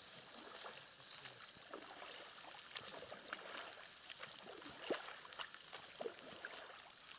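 Faint small splashes and a few light ticks of water as a wet seine net is handled at the water's edge, over a quiet outdoor hiss.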